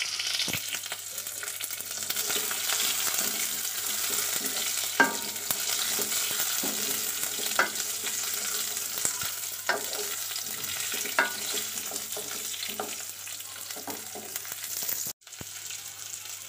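Garlic, green chillies, curry leaves and mustard and cumin seeds sizzling in hot oil in a metal kadhai, a wooden spoon stirring and scraping the pan every couple of seconds. The sound breaks off for a moment near the end.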